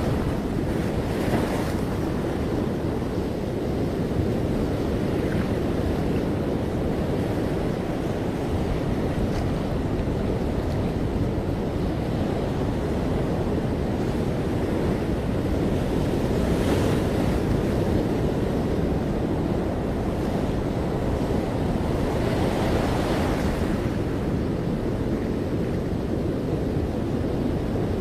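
Ocean surf breaking and washing on a beach in a steady low rush, with a few brighter swells as waves break, about a second in and again after about 17 and 23 seconds. Wind rumbles on the microphone underneath.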